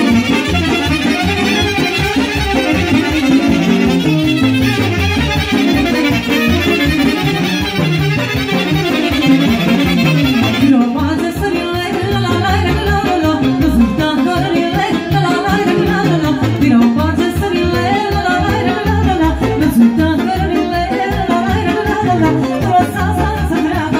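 Banat folk dance music for the brâu, played by a band with a steady, quick dance beat.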